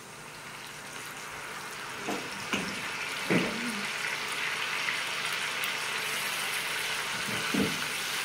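Meat and potato curry frying in a wok as masala paste goes in; the sizzle grows steadily louder. Four short knocks of utensils against the bowl and pan sound over it.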